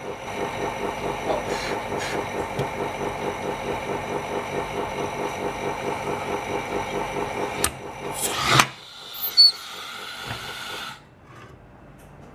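A small machine motor runs steadily with a fast, even pulsing and a constant whine, from a phone-screen refurbishing machine. It stops about eight and a half seconds in, followed by a few sharp clicks and a short, quieter hum before it goes quiet.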